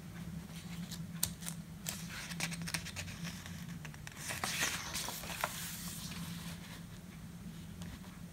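Paper page of a picture book being turned: soft rustling and scattered light taps, loudest a little after the middle, over a faint steady hum.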